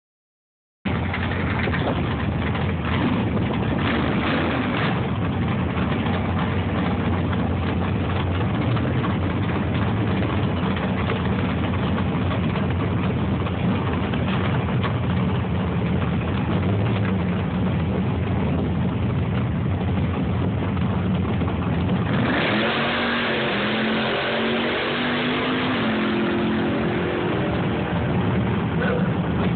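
Engines of drag-racing cars running loudly at the staging lanes. About 22 seconds in, one car's engine comes to the front, its pitch shifting in steps as it is revved.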